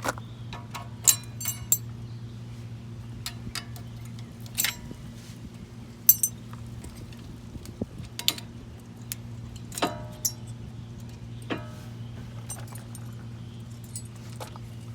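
Irregular light metallic clinks and taps as brake pad hardware clips are handled and fitted to the brake caliper bracket, a few ringing briefly. A steady low hum runs underneath.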